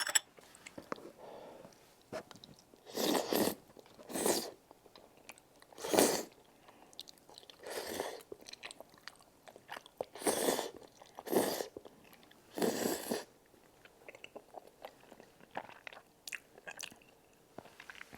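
Close-miked eating: a mouthful of tteokbokki rice cake and bunmoja glass noodle with cheese being chewed, with about seven louder wet bursts of chewing and smacking in the middle stretch and soft mouth clicks between them.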